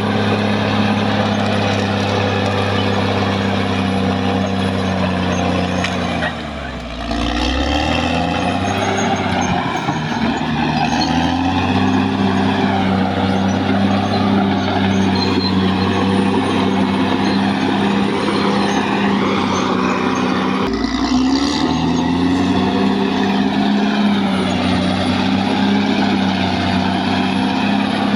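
Caterpillar D6R XL bulldozer's diesel engine running hard and steady, its pitch dropping and climbing back twice as the engine takes and sheds load, about six seconds in and again about twenty-one seconds in.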